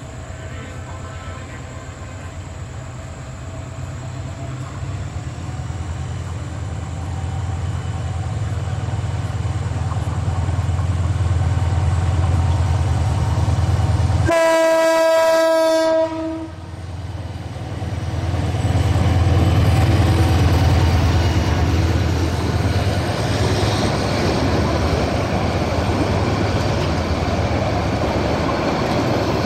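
GM-EMD GT18LA-2 diesel locomotive approaching with a steady low engine rumble that grows louder, then sounding its horn in one held note for about two seconds halfway through. Its passenger coaches then run past at speed, their wheels rumbling on the rails.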